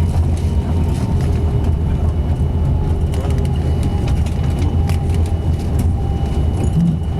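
Airbus A330-200 cabin noise: a loud, steady low rumble of engines and rushing air, with a faint steady whine above it.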